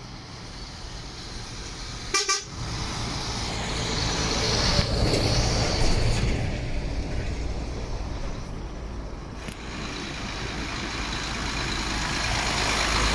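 A truck horn gives one short toot about two seconds in, over the steady running of a truck engine that grows louder toward the end.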